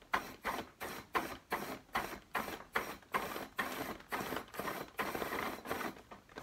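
Rebreather buoyancy wing's power inflator pressed in quick short blasts, about three a second, each a hiss of gas rushing into the wing as it is filled.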